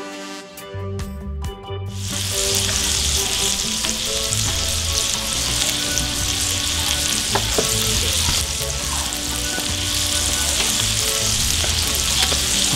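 Burger patties sizzling in their fat on a hot flat-top griddle. The sizzle starts loud about two seconds in and then holds steady, with background music carrying on faintly underneath.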